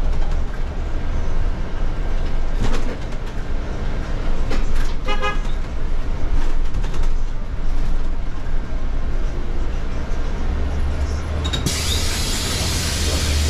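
City street traffic with a steady low vehicle engine rumble; a short horn toot sounds about five seconds in, and a sudden loud air hiss starts near the end.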